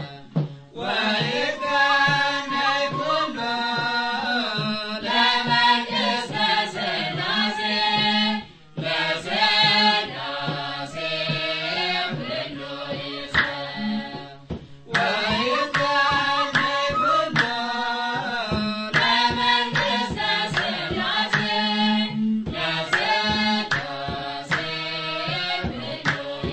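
Ethiopian Orthodox Tewahedo hymn (mezmur) sung over a hand-drum beat. The sung lines come in phrases with a short break about every seven seconds.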